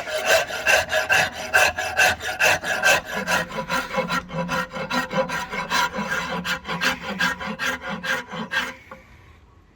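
A hand rasp scraping rosewood in quick, even back-and-forth strokes, about three to four a second, as the axe handle is shaped; the strokes stop about nine seconds in.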